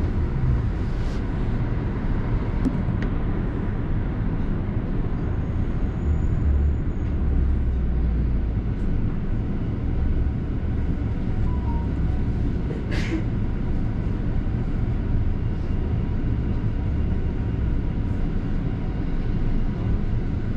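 Interior of a London double-decker bus on the move: steady low engine and road rumble throughout, with one brief sharp tick about thirteen seconds in.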